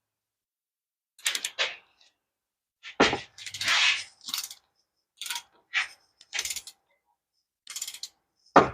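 Short metallic clinks and clatters of hand tools and parts being handled, about a dozen separate knocks with a longer scrape a few seconds in.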